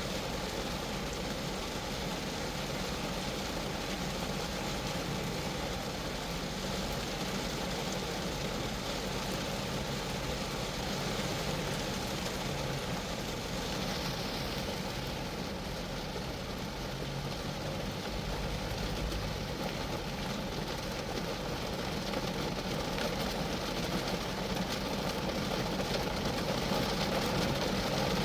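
Steady rain falling on a Geo Metro, the drops drumming on the small car's metal body in an even patter, growing a little heavier near the end.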